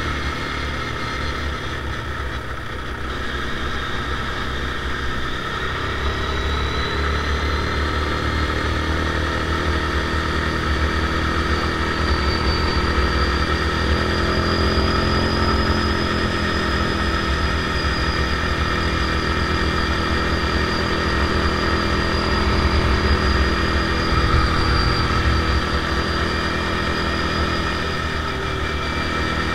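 Linhai ATV engine running steadily while the quad is ridden along a road, getting a little louder over the first ten seconds or so as it picks up speed, then holding steady.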